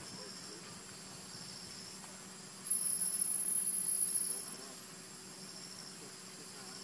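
Insects chirping: a pulsed, high-pitched chirp repeats about once a second over a steady thin whine. A louder, piercing high tone comes in about three seconds in and stops abruptly nearly two seconds later.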